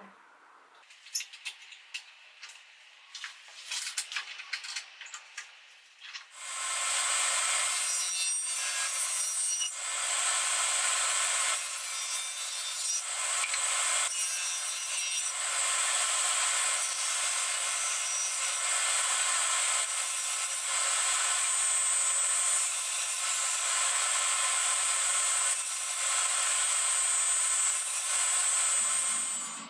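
A few knocks and clicks of a wooden panel being handled on a table saw. Then, from about six seconds in, the saw blade cuts through a pine door panel in long passes: a loud, steady cutting noise with a high whine, dipping briefly a few times between passes.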